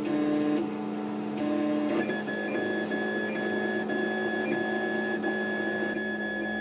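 Home-built 3D printer running a print, its stepper motors whining as the print head moves. For the first two seconds low tones start and stop with each short move; then a steady higher whine takes over, broken by brief gaps, over a constant low hum.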